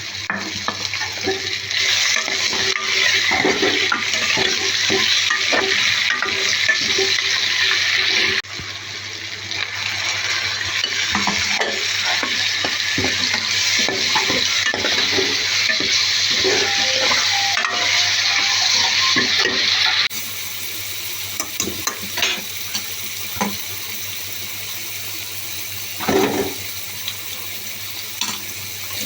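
Food sizzling as it fries in a pan while it is stirred, with small scrapes and knocks of the spoon against the pan. The sizzle drops suddenly to a quieter level about two-thirds of the way through.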